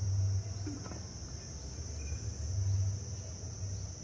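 Steady high-pitched chirring of insects in the background, with a low hum underneath that swells twice.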